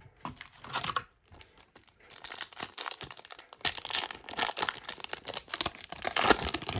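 Crinkling of thin plastic or foil trading-card packaging being handled, a few rustles at first and then dense, continuous crackling from about two seconds in.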